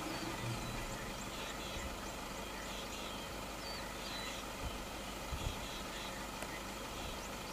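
Steady low hum and hiss of outdoor background sound, with faint short high chirps scattered through it and a couple of soft low thumps about five seconds in.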